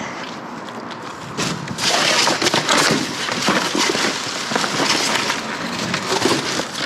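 Rummaging through trash: a dense rustling and crinkling of bags and packaging with small knocks, louder from about two seconds in.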